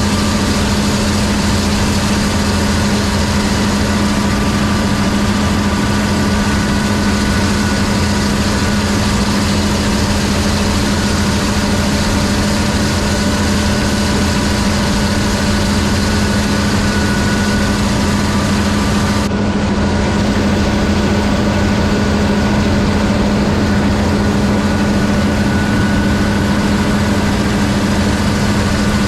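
Gleaner combine harvester running steadily in the field: a constant deep engine and machinery drone with a faint steady higher whine.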